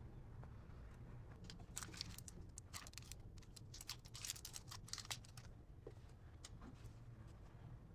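Faint rustling and clicking of hand work, thickest in the middle, over a low steady hum.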